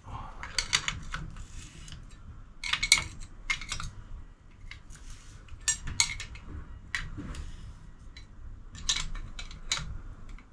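Sharp metallic clicks and clinks in short clusters every second or two as a tool turns the threaded spring collar on a BC Racing coilover, winding the spring preload off.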